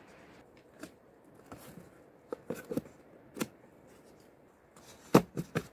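A plastic seed tray with its clear propagator lid being handled: scattered short plastic clicks and knocks, the loudest a quick cluster of three knocks a little over five seconds in.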